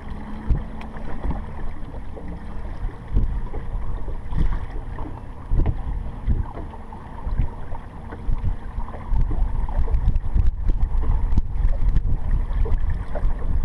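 Wind buffeting the microphone as a fluctuating low rumble, with a few light knocks.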